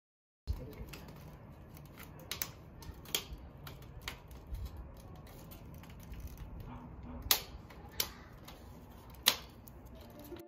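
Scattered clicks and taps, with three sharp loud clicks in the second half, from hands working a wooden slatted sign and its hooks on a metal wire-mesh fence panel, over a low rumble.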